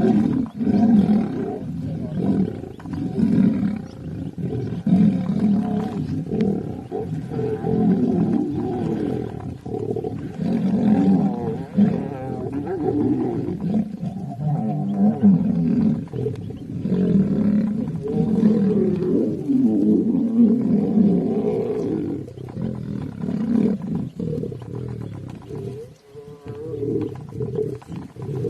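Lions fighting, growling and roaring in deep, unbroken bouts that swell and ease every second or two, with a brief lull about two seconds before the end.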